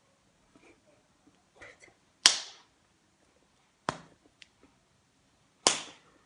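Hands smacking together three times during sign language signing, sharp slaps with a short ring of the room after each; the first and last are the loudest. A few faint soft rustles of hands and clothing lie between.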